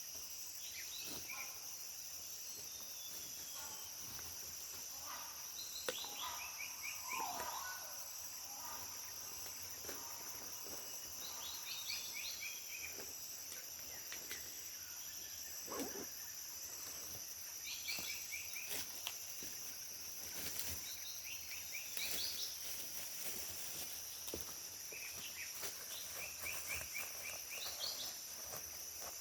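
Tropical forest ambience: a steady high-pitched insect drone with short bird calls repeating every few seconds.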